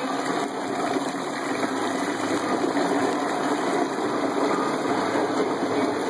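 A 1¼-horsepower garbage disposal running steadily as a pump, driving margarita mix through a PVC return pipe so the liquid churns and gushes in a cooler.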